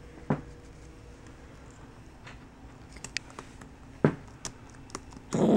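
A capuchin monkey tapping and slapping the keys of a MacBook Pro keyboard: scattered, uneven key clicks with a few harder slaps. There is a short, louder noise near the end.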